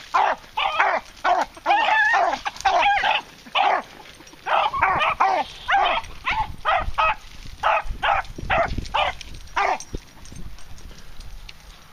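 Beagles barking and baying in short repeated calls, about two a second: the cry of hounds running a rabbit. The calls stop about ten seconds in.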